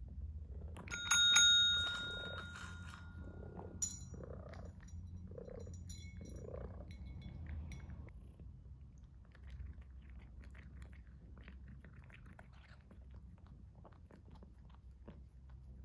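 Pet call bell (a desk-style service bell) rung once about a second in, with a clear ringing tone that fades over a couple of seconds, and a lighter tap on it near four seconds. Then soft crackling and clicking as a cat eats from its food bowl.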